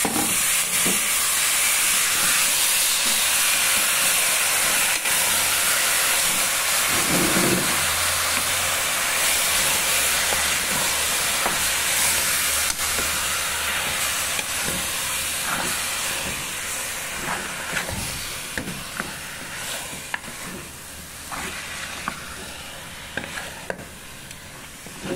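Bone-in beef chunks with onion, peppers and garlic sizzling in hot oil in a pressure-cooker pot, sautéed, while a wooden spoon stirs and scrapes through them with small clicks. The sizzle is loudest at first and gradually dies down.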